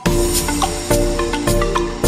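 Background music: an electronic track with plucked, marimba-like notes over a steady beat and deep bass.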